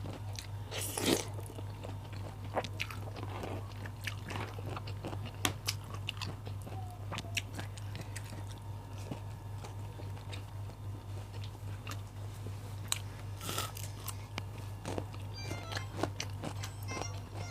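A person biting and chewing crunchy raw vegetables close to the microphone, a run of sharp crunches with louder ones about a second in and again later on, over a steady low hum.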